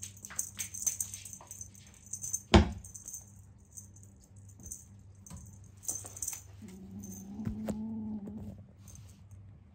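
A wand cat toy rattling and jingling in quick, irregular clicks as a kitten bats and pounces on it, with one loud thump about two and a half seconds in. Later comes a low, drawn-out voice-like sound of about two seconds.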